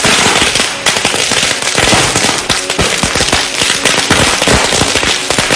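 Firecrackers going off on the ground in quick succession: a dense, loud crackle of many sharp bangs packed close together.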